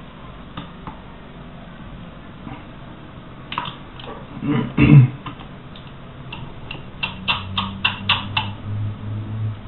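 Small hand-tool clicks and taps on an RC car chassis as a screwdriver and small parts are handled. The clicks are scattered at first, then a quick run of about seven clicks comes near the end.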